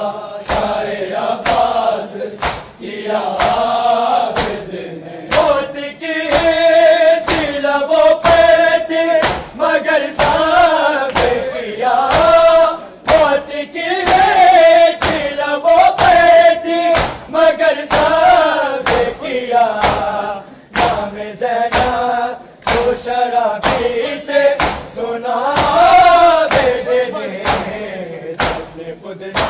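A group of men chanting a Shia noha (lament) loudly in unison, with a steady rhythm of sharp hand slaps on bare chests (matam) beating time under the chant.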